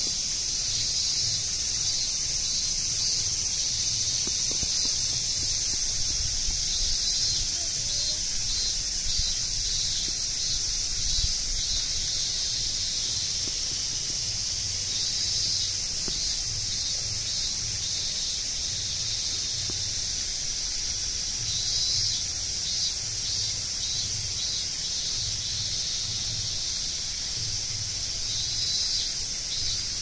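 A dense chorus of insects singing, high-pitched and steady, pulsing in places.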